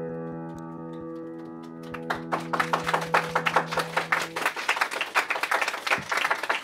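A held electric piano chord fades out and stops as audience applause begins with a few scattered claps, then thickens into full clapping about two seconds in.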